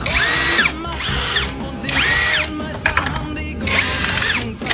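A handheld power drill or driver spins up in several short trigger pulls. Each burst rises in pitch, holds briefly and winds down. Background music plays underneath.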